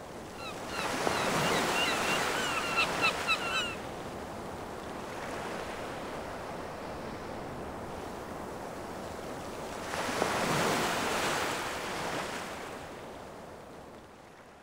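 Ocean surf: two waves swell and wash in. A run of short high chirps sounds over the first wave, and the surf fades out near the end.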